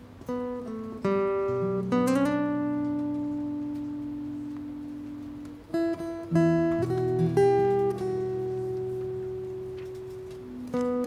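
Background music: an acoustic guitar playing slow phrases of a few plucked notes, each phrase left ringing and fading before the next.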